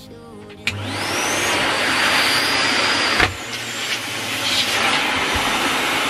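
Numatic Henry cylinder vacuum cleaner switched on with a click, its motor whining up in pitch within about a second and then running steadily with a rushing airflow. A sharp knock a little over three seconds in, after which the motor keeps running.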